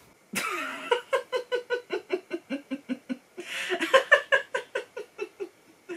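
A woman laughing hard in two long runs of quick, even laughs, about five a second, the first run sinking in pitch, with a gasping breath in about halfway through.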